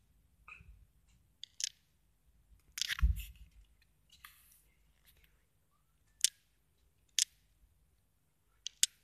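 A handful of short, sharp clicks and taps spread out over a quiet background. The loudest cluster, about three seconds in, comes with a dull thump.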